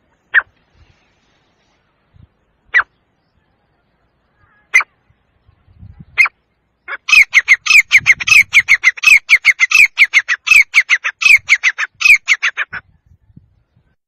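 Male grey francolin calling: a few single sharp notes spaced a couple of seconds apart, then a fast run of repeated notes, several a second, that breaks off about a second before the end.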